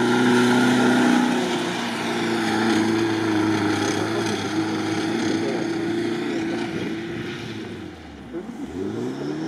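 Off-road vehicle's engine running hard under load, holding a steady pitch. About eight seconds in it falls away, then revs back up.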